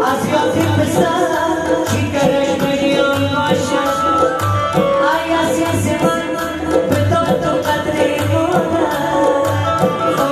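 Afghan band music played live: a man singing over keyboard, with tabla and hand drums keeping a steady beat.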